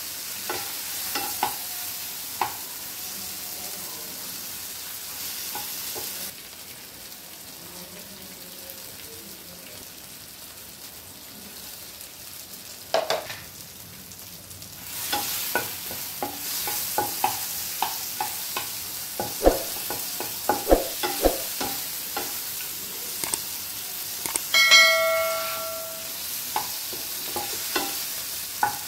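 Tomatoes, garlic and dried red chillies sizzling in oil in a nonstick frying pan, stirred with a spatula that clicks and scrapes against the pan. The sizzle drops quieter for several seconds in the middle. Near the end a ringing tone sounds for about a second and a half.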